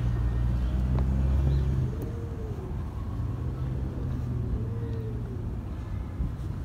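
A motor vehicle's engine running with a low, steady hum, louder for the first two seconds and then easing off a little.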